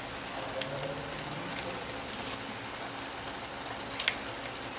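Pork humba simmering in soy sauce and vinegar in a pot, a steady light sizzle and crackle, with one sharp click about four seconds in.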